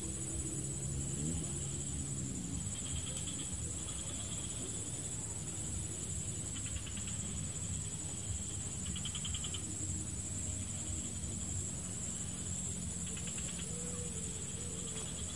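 Insects calling in swamp vegetation: a steady high-pitched whine, with short buzzing trills that come and go every couple of seconds.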